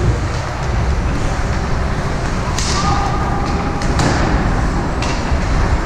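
Ice hockey game sound in a rink: skates scraping on the ice and sticks and puck clacking over a steady low rumble, with a hissing skate scrape about two and a half seconds in.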